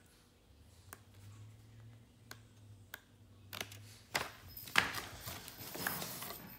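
Paper pages of a booklet turning softly, with a few light clicks. About three and a half seconds in, this gives way to louder rustling and crinkling of packaging being handled, including plastic wrap.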